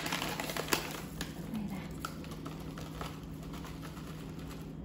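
Plastic pouch of seasoned seaweed flakes crinkling, with scattered light clicks and taps as the flakes are shaken out over a plastic bowl of rice.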